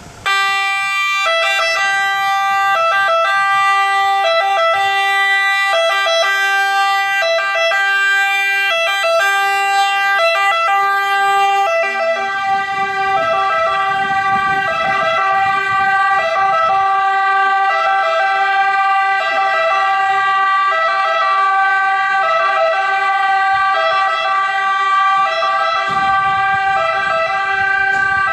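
Italian two-tone (bitonale) ambulance siren on a Fiat Ducato ambulance, switched on suddenly and then alternating steadily between a lower and a higher pitch, each held for under a second.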